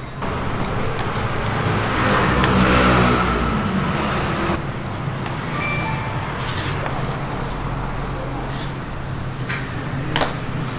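A motor vehicle passing on the street, swelling and fading over the first four seconds above a steady low hum. A few short sharp clicks and knocks follow in the second half, the loudest near the end.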